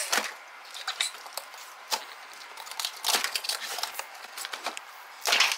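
Clear tape being peeled and torn off a cardboard toy box, with irregular crinkling and crackling of the plastic and a louder rip near the end.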